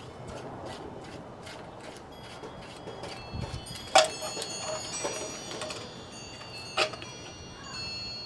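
Plastic housing of a solar LED spotlight being pried apart by hand: a sharp snap about four seconds in and another click near seven seconds, with light handling knocks between. Wind chimes ring in the background from the middle on, and faint even ticking, two or three a second, is heard near the start.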